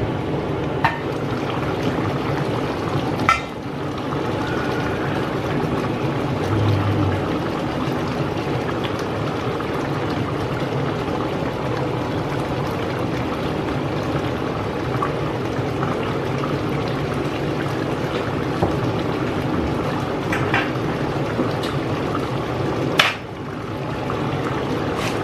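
Chicken stew bubbling steadily at a simmer in a stainless steel pot. Two sharp clicks sound, one about three seconds in and one near the end.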